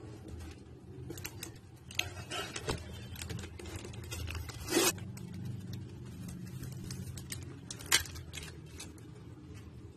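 Cardboard packaging and AAA batteries being handled: rustling and scraping of cardboard with scattered small clicks. The loudest sounds are a brief scrape about five seconds in and a sharp click near eight seconds.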